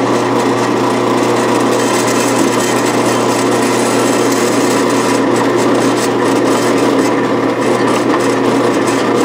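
Drill press motor running with its bit cutting dry into a clamped metal plate, a steady hum under continuous cutting noise.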